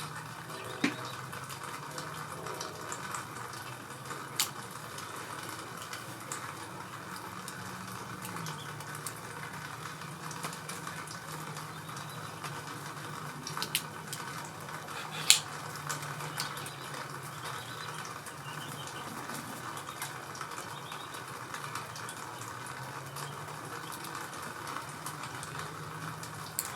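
A few sharp metallic clicks of hand tools and small engine parts, the loudest about fifteen seconds in, over a steady hiss and low hum, while a snap ring is worked off the gear shift spindle with snap ring pliers.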